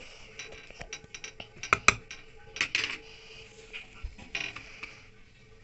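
Metal kitchenware clinking: a spoon and small bowls tapping against a stainless steel mixing bowl and steel tray, a few scattered clinks with the sharpest pair a little under two seconds in.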